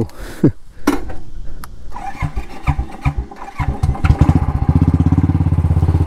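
Motorcycle engine being started: it cranks from about two seconds in, catches about a second and a half later, and settles into a steady idle.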